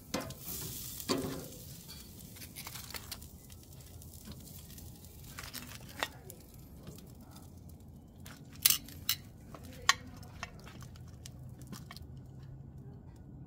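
Metal tongs clicking and scraping against a grill grate and a glass baking dish as grilled lobster tails are lifted off and set down, over a low sizzle from the grill. A few sharp clicks stand out in the second half.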